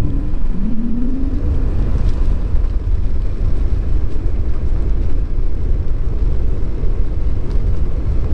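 Steady low wind rumble buffeting a Rode VideoMic GO II shotgun microphone shielded only by its foam pop filter, at riding speed on a moving vehicle. A brief rising tone sounds about a second in.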